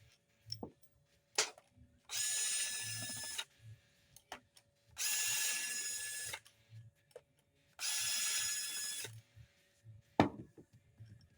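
Cordless drill-driver running in three short bursts of about a second and a half each, backing the screws out of a Hitachi framing nailer's back cover. A sharp knock near the end.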